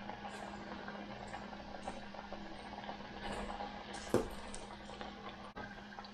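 Battered oyster mushrooms deep-frying in a saucepan of hot oil, a steady crackling sizzle, with a single knock about four seconds in and a low steady hum underneath.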